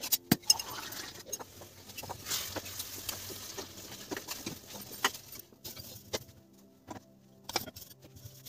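Sharp clicks and taps of cookware as a roti is roasted in a pan, with a light scraping rustle between about two and five seconds in.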